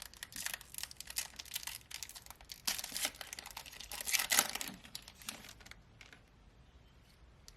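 A trading-card pack wrapper being torn open and crinkled, with a run of crackling rustles that peaks about four seconds in and dies away after about six seconds.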